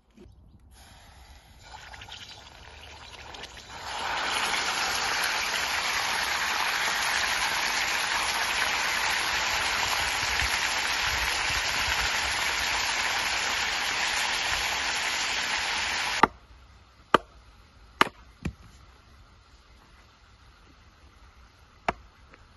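Whole duck searing in hot fat in a wok on a wood stove: a loud, steady sizzle that builds over the first few seconds and then cuts off abruptly. It is followed by four sharp knocks of an axe splitting wood on a chopping block.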